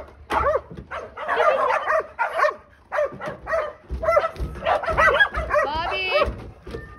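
Several dogs whining and yipping excitedly in many short calls that rise and fall in pitch, coming in quick succession and overlapping, with a brief lull about two and a half seconds in.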